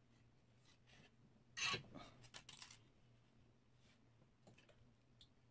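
Brief scraping and rubbing of a screwdriver, small circuit board and wire being handled and set down on a tabletop: a short cluster of scrapes about two seconds in, the first the loudest, with a few faint ticks later against near silence.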